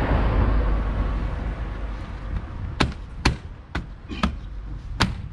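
A vehicle drives past, its noise swelling and fading over the first couple of seconds. Then plastic clips of the number plate holder snap into the BMW E36's front bumper with five sharp clicks about half a second apart.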